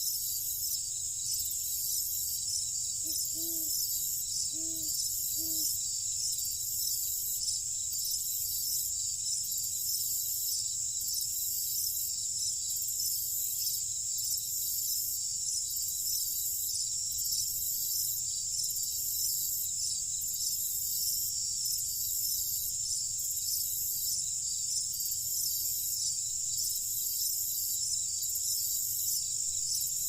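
A dense, high-pitched chorus of night insects, crickets, trilling without a break and pulsing evenly about once a second, over a steady low rumble. A few seconds in, three short low calls sound about a second apart, each rising and falling in pitch.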